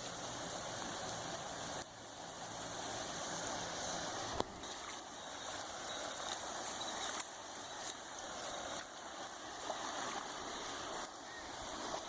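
Rushing floodwater in a swollen creek: a steady hiss of flowing water that changes abruptly in level a few times.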